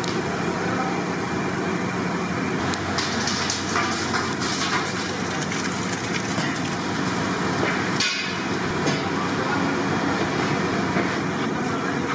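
Steady hiss and hum of a large gas stove burner under a pot of boiling vegetable water. Dry basmati rice pours into the water partway through.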